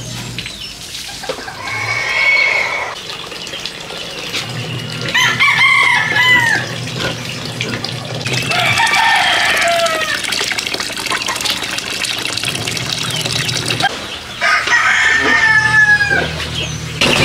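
Roosters crowing about four times, one long crow after another a few seconds apart, each ending in a falling glide.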